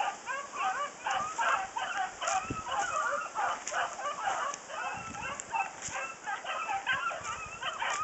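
Several hunting hounds baying, many short overlapping calls with no pause.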